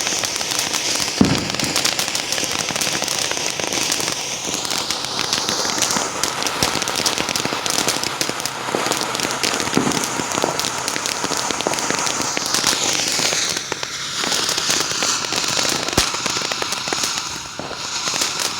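Fireworks going off: dense, continuous crackling over a steady hiss, with a few louder bangs about a second in, about ten seconds in and near the end.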